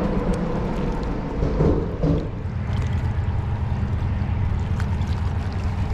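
Water sloshing against a kayak's hull under a steady low rumble, with a few faint ticks.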